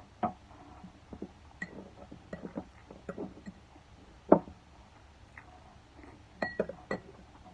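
A metal spoon clinking and scraping against a footed glass bowl, with scattered light taps of utensils on a plate. The sharpest knock comes about four seconds in, and a quick cluster of clinks near the end leaves a brief glassy ring.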